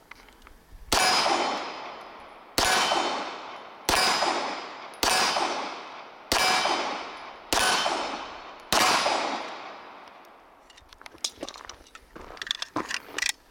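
Seven shots from a Walther PPK/S .380 ACP pistol, fired at a slow steady pace about a second and a half apart, each a sharp report with a long ringing tail. Near the end come light metallic clicks as the pistol is handled.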